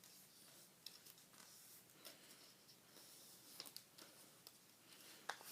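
Faint paper handling during origami folding: soft rustles with scattered crisp ticks as a sheet of paper is folded and its creases pressed.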